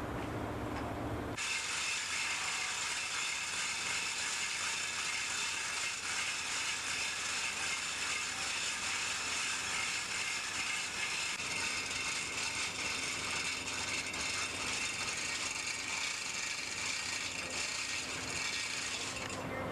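A mechanism clicking very rapidly and steadily, like a ratchet, with a high hiss. It starts abruptly about a second and a half in and stops abruptly just before the end. Before it there is a low steady hum.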